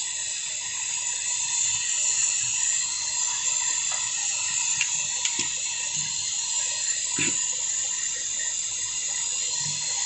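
Gas brazing torch flame hissing steadily as it heats and brazes the joint at the head of a copper refrigerator filter-drier.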